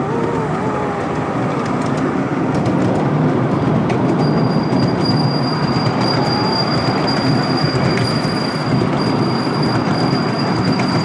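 Ride-on miniature railway train rolling along its track: a steady rumble and clatter of wheels on rail. A thin, steady high squeal joins about four seconds in.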